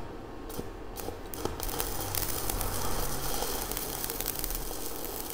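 Stick (MMA) welding arc from a Weldinger MEW 201 SYN ECO inverter welder set to 50 A. A few taps as the electrode is struck, then from about a second and a half in a steady crackling hiss as the arc burns.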